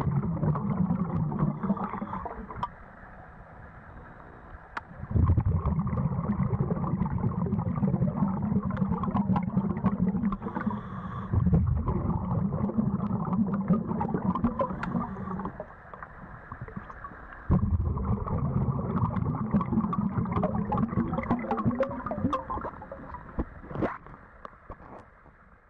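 Underwater rumble and gurgle of water and bubbles around a diver's camera, in long stretches of several seconds broken by short quieter gaps, with scattered small clicks. It fades out near the end.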